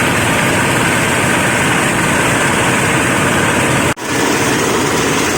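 Veneer-waste grinding machine running loud and steady, a dense mechanical noise. It cuts out for an instant about four seconds in.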